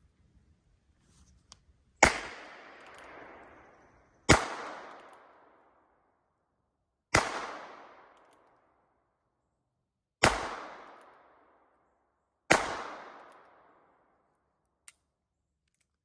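.22 LR revolver fired five times, a few seconds between shots, each crack trailing off in an echo through the woods over a second or two. A faint click follows near the end.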